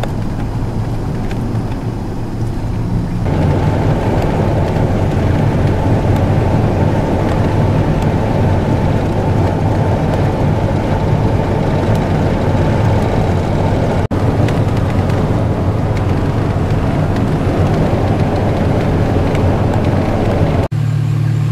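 Steady in-cabin road and engine drone of a Chevrolet Tahoe driving on the highway, with a low hum and tyre noise that grows louder about three seconds in as it picks up speed. The sound cuts out for an instant twice.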